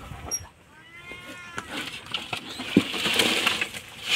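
A short, wavering animal call about a second in. Then a knock, and a rustling clatter as a bowl of live shrimp is tipped into a wicker basket near the end.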